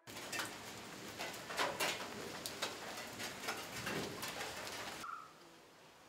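Birds calling over a dense crackling, rustling background full of sharp clicks. About five seconds in this stops abruptly, leaving a quieter background and a single short bird call.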